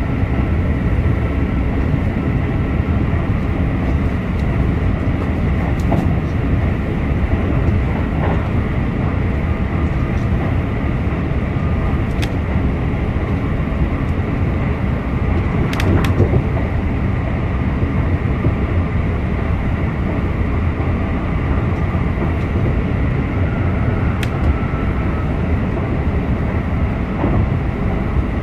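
Keisei Skyliner express train running steadily at speed, heard from inside the car: a continuous low rumble of wheels on rail with a faint steady whine and a few light clicks.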